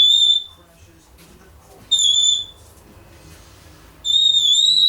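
African grey parrot whistling: two short, steady high whistles about two seconds apart, then a longer one that wavers slightly in pitch, starting about four seconds in.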